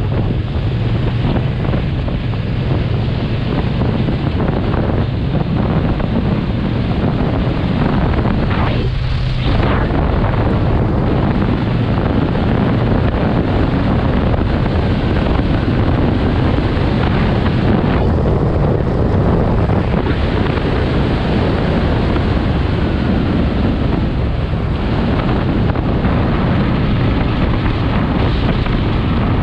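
Loud, steady wind rushing over the microphone of a motorcycle riding at road speed.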